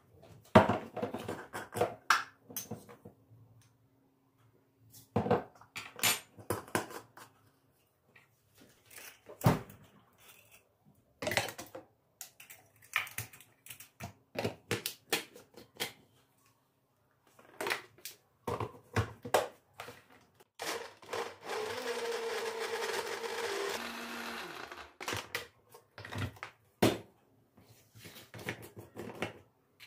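Household handling sounds: scattered clicks and knocks of objects being moved and set down. About two-thirds of the way through, a small appliance runs with a steady whir for about four seconds, then stops.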